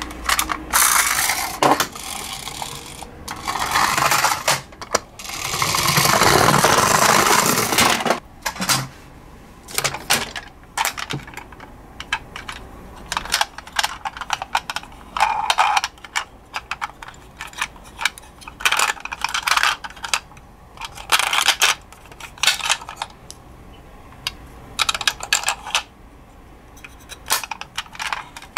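Plastic toy ambulances being handled: many small clicks and knocks of hard plastic against fingers and against each other. Two longer stretches of rasping, rubbing noise come about a second in and again around six seconds in.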